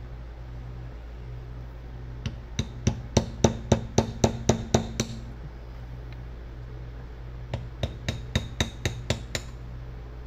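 Steel-headed hand sledge striking a brass punch in two quick runs of taps, about four a second: around a dozen starting about two seconds in, then nine more near the end, driving an outer seal into a wheel hub. A steady low hum runs underneath.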